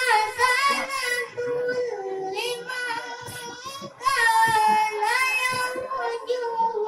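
A child reciting the Quran in melodic tilawah style into a microphone: long, ornamented held notes that wind up and down in pitch, with a short pause for breath about four seconds in.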